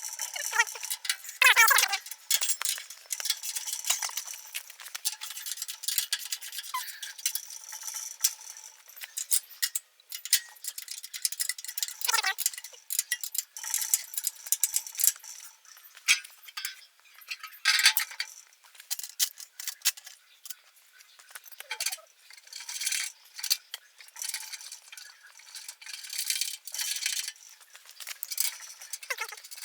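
Irregular metallic clinks and knocks, tools and machine parts being handled during assembly, with a few brief squeaks.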